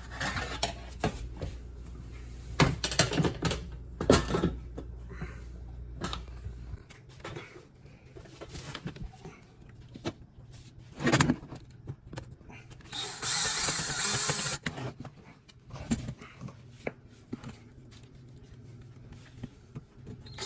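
Clicks and knocks of a dishwasher's cover panel being handled and fitted back on, with a short burst of hissing noise about 13 seconds in that lasts about two seconds.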